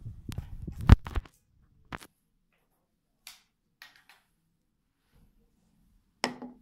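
Soft plastic vaccine bottle handled and squeezed by hand. A dull rubbing noise runs through the first second, then a sharp click just under a second in. A few faint plastic clicks and crackles follow, and a sharper knock comes near the end.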